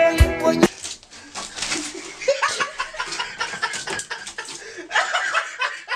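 Music with a drum beat cuts off suddenly under a second in, followed by people laughing and giggling more softly.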